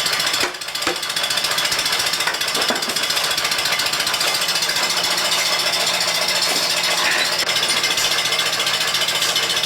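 Milking machine equipment running steadily, a loud, fast mechanical chatter.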